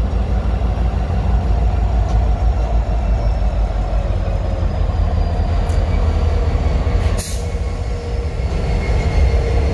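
Diesel freight locomotives passing close by: a steady deep engine rumble with the run of wheels on rail and a faint whine over it. A brief sharp noise comes about seven seconds in, and the rumble eases slightly just after.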